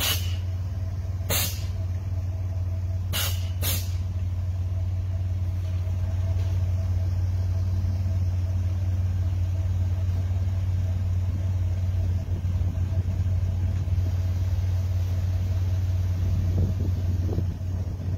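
Air-ride suspension on a bagged 2000 Chevy S10 Xtreme being worked from the switches: four short, sharp air blasts in the first four seconds from the valves moving the airbags, over a steady low hum.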